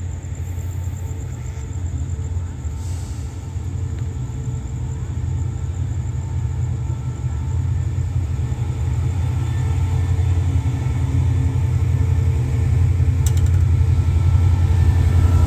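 Diesel locomotive hauling a passenger train as it approaches and pulls in alongside the platform: a low engine rumble that grows steadily louder as it nears.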